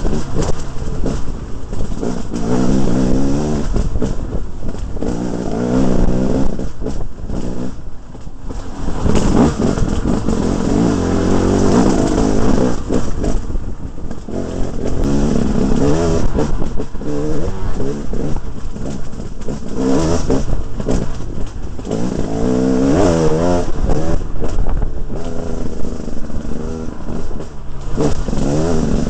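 2011 KTM 300 single-cylinder two-stroke dirt bike engine, revved up and down over and over: a series of rising and falling sweeps in pitch, every few seconds.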